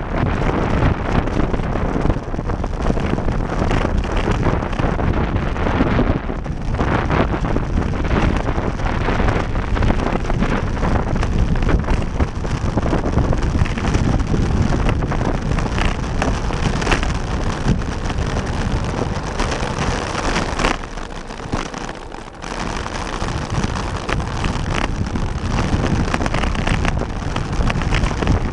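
Loud, steady wind buffeting the camera's microphone on a bicycle descending at speed. It drops off for a second or two about three-quarters of the way through, then picks up again.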